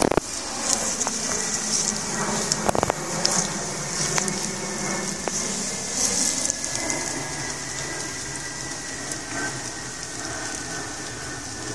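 Steady rain pattering on leaves and moss, a flickering hiss with scattered drop ticks, with a couple of knocks near the start and about three seconds in.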